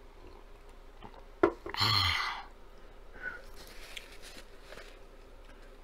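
A sharp click, then a loud breathy exhale: a woman blowing out hard against the burn of a spicy jalapeno, with a few faint breaths and sniffs after.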